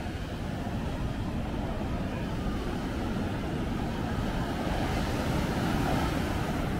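Ocean surf breaking and washing up the beach, with wind buffeting the microphone: a steady rushing noise that grows a little louder near the end.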